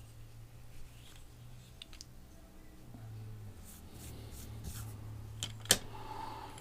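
Light clicks and taps from handling a small diecast toy truck and its wheels, with one sharp click about five and a half seconds in.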